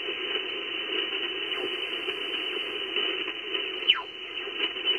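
HF amateur radio transceiver hissing with band noise through its narrow single-sideband audio while the operator tunes toward a station on 14.309 MHz. There are a couple of quick falling whistles and sharp clicks in the last second or so.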